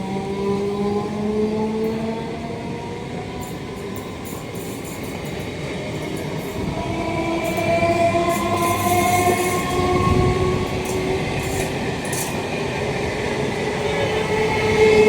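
Indian Railways locomotive horns sounding in long, overlapping blasts as a train runs past, over the rumble of the coaches and clicks of wheels on rail joints.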